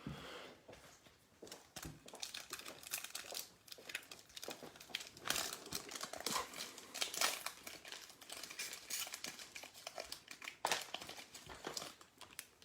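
Crinkling of a trading-card pack's foil wrapper as it is handled and opened, an irregular run of crackles with no steady rhythm.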